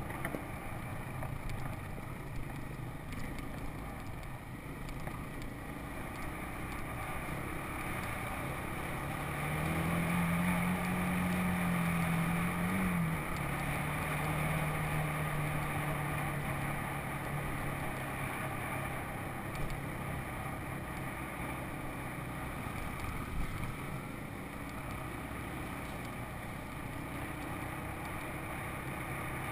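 Four-wheeler (ATV) engine running under way on a dirt trail. It speeds up from about nine seconds in, drops back suddenly a few seconds later, then runs steadily.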